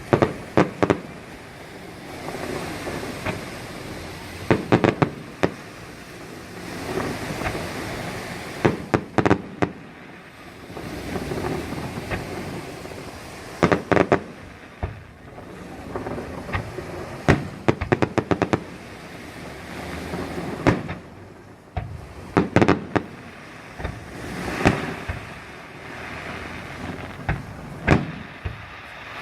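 Fireworks display: sharp bangs and quick crackling volleys arriving in clusters every few seconds, with a steady noisy background between the clusters.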